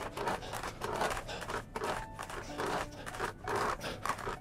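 Threaded screw of a wooden bending press being cranked down by hand, with rasping scrapes and short squeaks from the screw and jig as a steamed board is forced around a curved form. No snapping from the wood.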